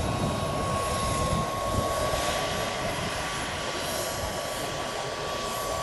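Turbine engine of a large-scale RC AgustaWestland AW139 model helicopter in flight: a steady high turbine whine, its pitch creeping slightly upward, over an even rushing noise.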